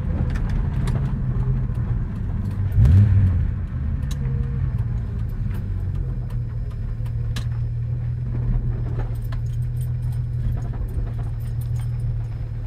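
Holden VU ute's V6, fitted with high-ratio roller rockers, running at low speed, heard from inside the cabin as a steady low drone with a brief louder surge about three seconds in. Scattered light clicks and rattles come through over it.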